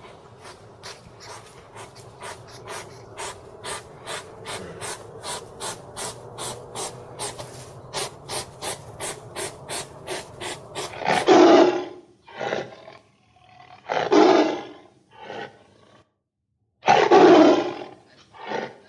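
A large animal calling with loud, rough growls: about five calls from about two-thirds of the way in, separated by short pauses. Before them comes a long run of quick, regular clicking sounds, about three a second.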